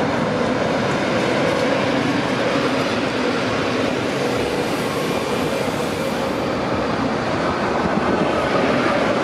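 SNCF TGV Duplex double-deck high-speed train passing close by, a steady rolling noise of wheels on rails.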